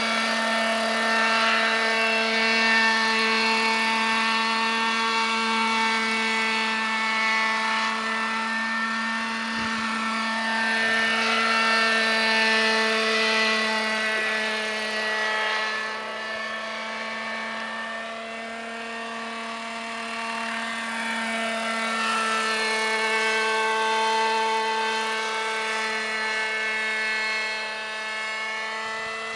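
Petrol-engined radio-controlled scale Robinson R22 helicopter in flight: a steady, high engine buzz with its rotor noise, swelling and fading as the model moves about and climbs away.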